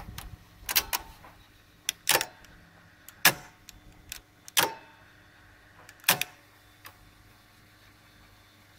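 Grundig TK60 valve tape recorder's piano-key transport mechanism clacking sharply six or seven times, about once a second and sometimes in quick pairs, as its keys are worked during a function test. A faint steady hum from the running drive sits underneath.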